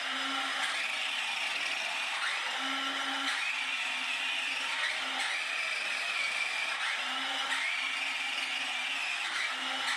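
Electric drive motors and gearing of a JJRC Q137 8x8 skid-steer RC vehicle whining as it is driven, the pitch dipping and climbing back again every second or two as the throttle and steering change.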